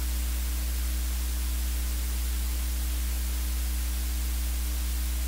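Steady static hiss with a low electrical hum beneath it: the background noise of the recording microphone, unchanging throughout.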